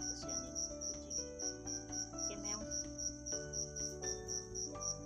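Crickets chirping steadily in a fast, even pulse of about four to five chirps a second, over soft background music of held notes.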